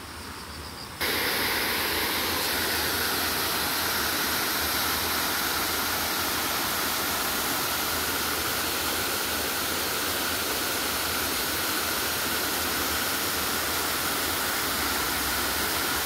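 Small waterfall cascading over rocks into a pool: a steady rush of falling water that starts abruptly about a second in and holds even throughout.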